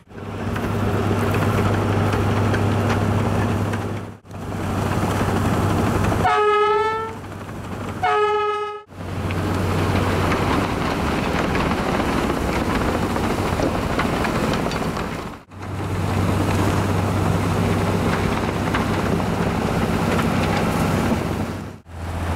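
Railway snow-blower trains blasting through deep snow: a steady, dense rushing roar of thrown snow and machinery with a low hum underneath. About six seconds in a train horn sounds two blasts, each about a second long. The roar breaks off briefly a few times.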